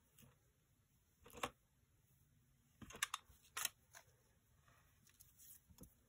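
Faint handling noises of lace scraps and a clear plastic zip bag being rummaged through: a few brief crinkles and taps, the loudest a short cluster near the middle.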